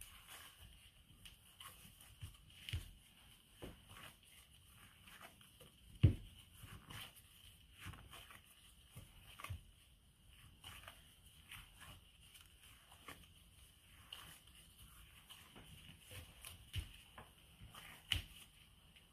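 Soft handling sounds of a plastic-gloved hand mixing cookie dough in a glass bowl: scattered light squishes, glove rustles and knocks, with one louder knock about six seconds in. A faint steady high hum lies underneath.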